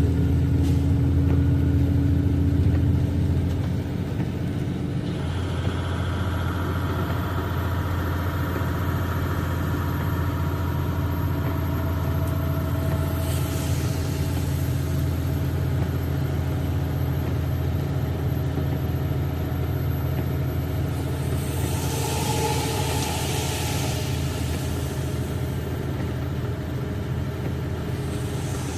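Big truck's diesel engine running steadily under way, louder for the first few seconds and then settling a step lower about four seconds in. A brief hiss rises and fades about three quarters of the way through.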